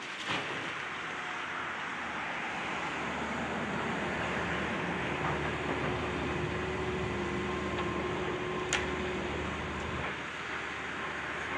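Excavator's diesel engine running steadily, with a faint whine, as it works. Two sharp knocks break through: one near the start and one about nine seconds in.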